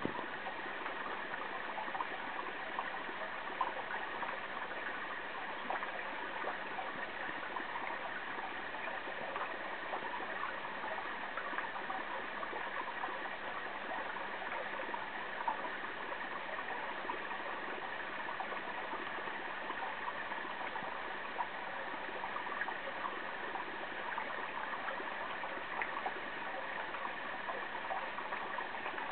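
Steady trickling and gurgling of water circulating in an aquarium, unchanging, with a fine crackle of small splashes.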